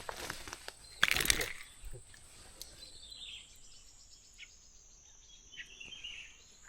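A short burst of noise about a second in, then quiet outdoor ambience with a few faint high bird chirps.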